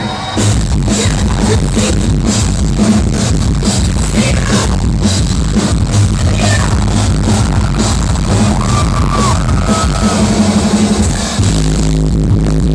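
Live electronic dance music played loud through festival speakers, with a steady kick-drum beat over heavy bass; the bass line changes after a brief dip near the end.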